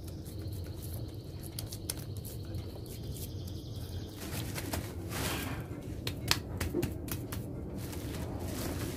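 Hands pressing and patting wet mud around a leaf-wrapped bundle in a metal tray, then rustling a woven sack, with a scatter of short clicks and scrapes in the second half. A steady low rumble runs underneath.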